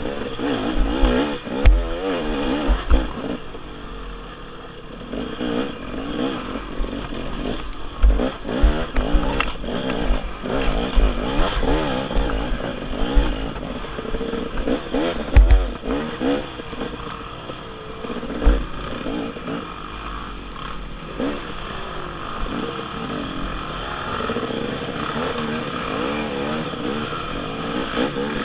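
Dirt bike engine revving up and down in short throttle bursts, its pitch constantly rising and falling as the bike works over a rough trail. Several sharp knocks and some clatter come from the bike striking the uneven ground.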